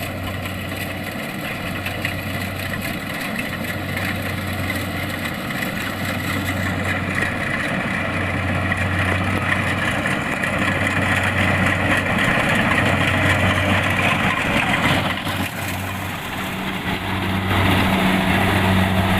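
Kubota DC-70 Plus rice combine harvester's diesel engine running steadily as it harvests, gradually getting louder, with a brief dip about three-quarters of the way through before it grows louder still.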